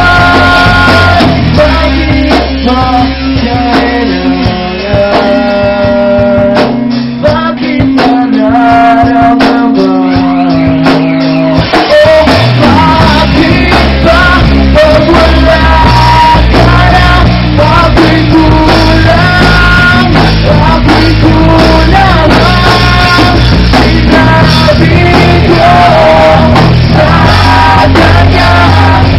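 Rock band playing live: electric guitars, bass and drums with a male lead singer, recorded loud and close. After a sparser stretch of held notes, the full band comes back in about twelve seconds in.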